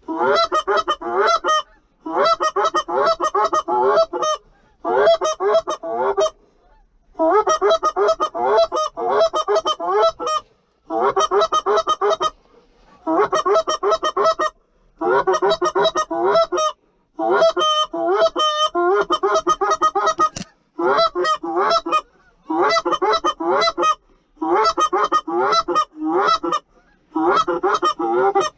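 Goose call blown in rapid bursts of honks and clucks, each burst one to three seconds long with short breaks between, calling to flying geese; around two thirds of the way in a few longer, drawn-out honks.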